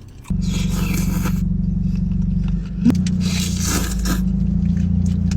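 Car engine running through an aftermarket exhaust: a steady low rumble that cuts in suddenly a moment in, with bursts of hissing noise over it and a short sharp spike about three seconds in.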